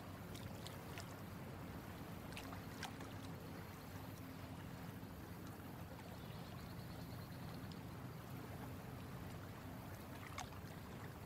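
Faint water lapping gently against a small boat's hull, over a steady low hum. A few light clicks come in the first few seconds and once more near the end.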